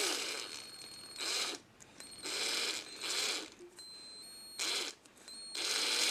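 Drill run in about six short trigger bursts at low speed, the motor spinning up and slowing each time. It is screwing an axle into a small model-car wheel rim.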